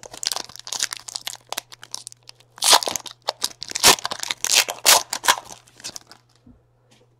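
Foil wrapper of a trading-card pack being torn open and crumpled: a run of sharp crinkling crackles, loudest in the middle, dying away about a second before the end.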